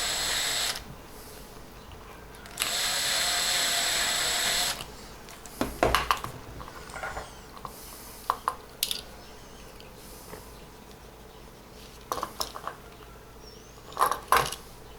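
Small electric drill whining as it drills out the rivet of a diecast model car with a slightly larger bit. It runs in two bursts, the second about two seconds long, and is followed by scattered light clicks and knocks.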